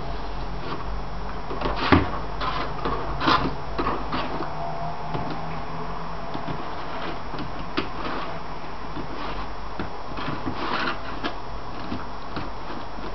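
Plastic laundry basket being nosed and pushed across a parquet wood floor by a Shiba Inu, giving irregular knocks and scrapes; the loudest knock comes about two seconds in, with another a second later.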